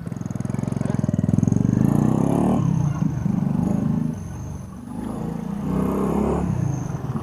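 Rusi Korak 110 motorcycle's small single-cylinder four-stroke engine running and being revved, rising in pitch at the start, easing off around the middle and picking up again. The bike is being tested after a brake pad change.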